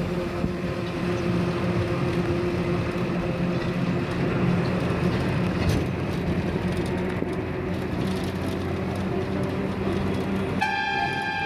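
Steady drone of a moving bus heard from inside: engine hum with road and wind noise. Background music comes in near the end.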